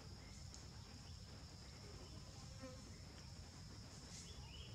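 Faint, steady high-pitched insect drone, with a low rumble underneath.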